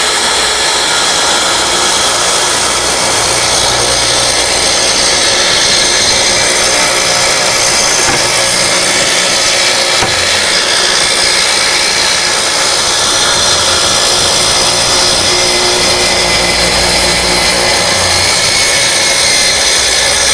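Festool track saw running steadily under load as it rips lengthwise through a thick black walnut slab along its guide rail.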